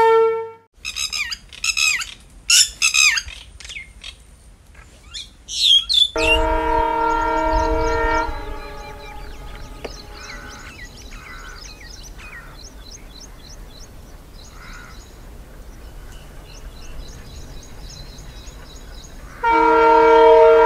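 Birds chirping, then a diesel locomotive's horn sounds a loud, steady blast of about two seconds some six seconds in. A low rumble and faint chirps follow, then a second horn blast near the end.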